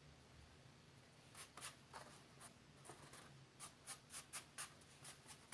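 Faint, irregular scratching and rustling, a string of short scrapes starting about a second in: fingers picking fluffy carpet fuzz out of recovered baking soda.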